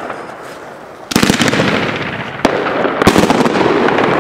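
Fireworks exploding: a quick cluster of sharp bangs about a second in, a single crack midway, and another cluster of bangs about three seconds in, over a steady crackling background.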